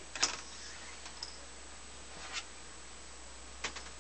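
A few sharp clicks and light knocks as a vinyl record is lifted off a turntable platter. The loudest comes about a quarter of a second in, another a little after two seconds, and a quick double click near the end, over a faint steady hum.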